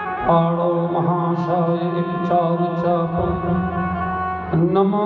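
Indian devotional music: a sung melody over a steady drone.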